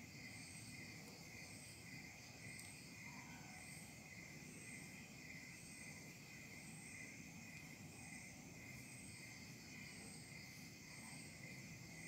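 Near silence with a faint, steady, high-pitched insect chirring in the background and a soft, higher pulse repeating about one and a half times a second.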